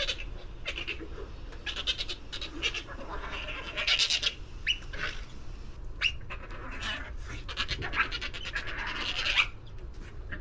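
River otters chirping and squeaking in quick, short, high calls, with clicks mixed in. A low, steady rumble runs underneath.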